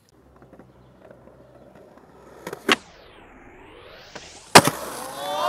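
Skateboard hardflip down a stair set: a sharp crack of the tail popping, then about two seconds later a very loud slam as the board lands, followed by wheels rolling.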